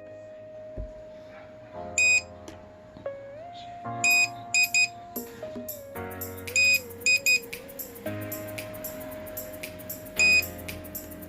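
Upbeat background music: a held synth tone under short, loud, high beeping notes that come in a melodic pattern every couple of seconds.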